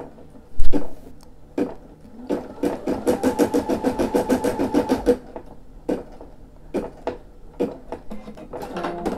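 Brother SE600 embroidery machine sewing: a quick run of needle strokes at about ten a second for about three seconds in the middle, with single stitch clicks spaced out before and after. A single loud knock comes just after the start.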